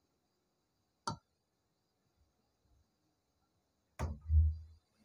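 Handling noise from a phone stand and a digital caliper being moved on a tabletop: a sharp click about a second in, then a knock and a dull thud near the end.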